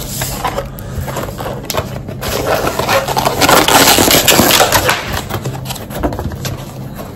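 Thin plastic bag rustling and crinkling as a styrofoam takeaway food box is handled and pulled out of it, with many small crackles, loudest around the middle.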